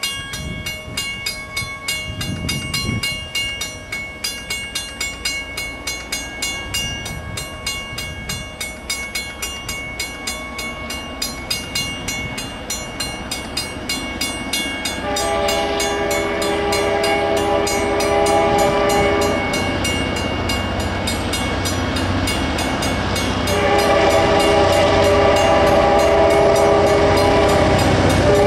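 A grade-crossing bell rings at a steady beat of about two to three strokes a second as a diesel locomotive approaches. About halfway through, the locomotive's multi-tone horn sounds one long blast, then a second long blast near the end, over the engine's growing rumble as it passes close by.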